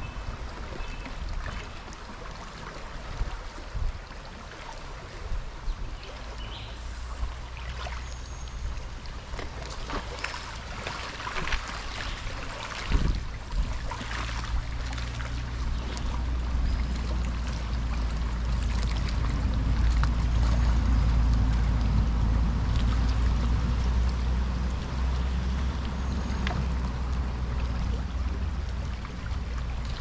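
River water lapping and trickling around a bamboo raft, with scattered small splashes and knocks in the middle; from about halfway a steady low rumble sets in underneath.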